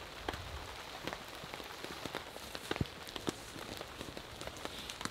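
Light rain pattering, with many scattered drops ticking irregularly.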